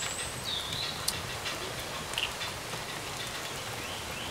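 Outdoor ambience: a steady background hiss with faint birds chirping now and then, and a couple of small clicks about one and two seconds in.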